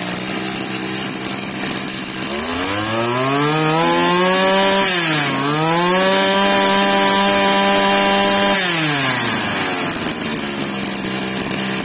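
Small 25cc two-stroke brush cutter engine idling, then revved up to high speed about two seconds in, eased off for a moment midway and opened up again, held at high revs, and let back down to idle near the end.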